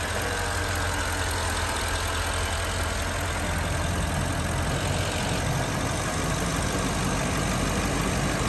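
2016 Porsche Panamera Turbo's twin-turbo V8 idling steadily and smoothly in the seconds after a cold start.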